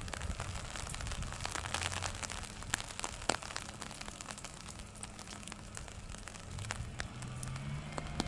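Raindrops hitting an umbrella close overhead, as irregular sharp ticks and taps. Under them runs a low steady hum, which rises in pitch near the end.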